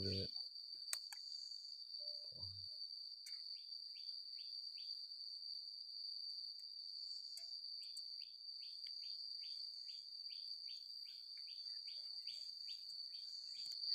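Insects calling: a steady high-pitched buzz, with short chirps repeating about three times a second that are sparse at first and become regular from about six seconds in.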